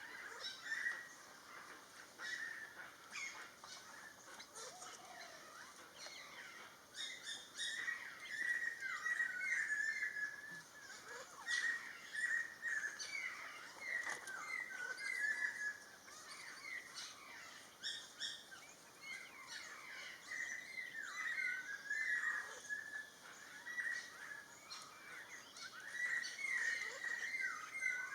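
Small birds chirping and twittering continuously, a busy mix of many short, falling chirps with scattered sharp clicky notes.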